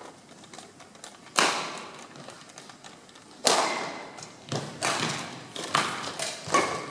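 Badminton rackets striking a shuttlecock in a rally, each hit a sharp crack ringing on in a large hall: one about a second and a half in, another about two seconds later, then a quicker run of hits and footfalls near the end.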